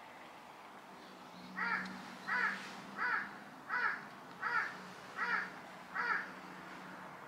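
A crow cawing seven times in an even series, a little faster than one caw a second.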